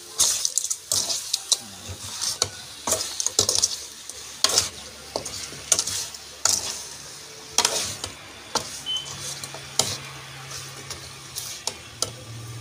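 A metal spoon scraping and knocking against an aluminium pot as pork ribs in thick curry paste are stirred, about once a second and unevenly. The meat sizzles underneath as it fries.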